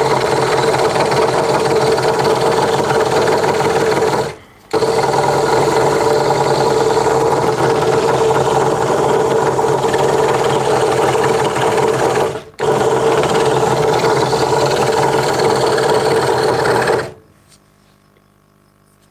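Craftsman 22-inch scroll saw running, its reciprocating blade cutting through a wooden board with a steady buzzing hum. The sound breaks off briefly twice and stops about two seconds before the end.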